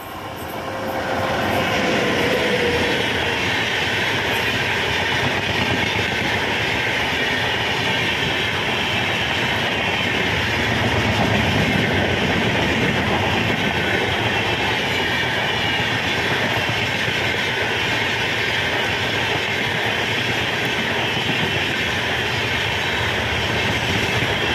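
Express train hauled by a WAP7 electric locomotive passing close by at speed. The sound swells over the first couple of seconds, with a falling tone as the locomotive goes by, then settles into a steady loud rush of coach wheels on the rails.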